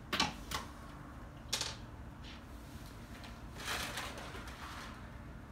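A few sharp clicks and knocks in the first two seconds, then a short scraping rush about four seconds in.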